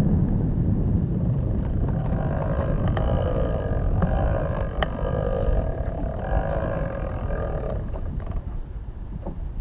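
Wind buffeting the microphone, with the steady drone of a passing motorboat's engine from about two seconds in until near the end, its wake still to reach the kayak.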